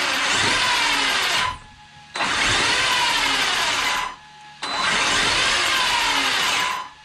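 Traxxas X-Maxx RC monster truck's brushless motor and gear drivetrain whining as the wheels spin in the air under throttle, given in three bursts of about two seconds each, the pitch rising and falling. The freshly repaired cush drive and gears are running smooth.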